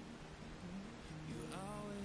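Faint background music: a few soft held notes, with a short rising phrase near the end.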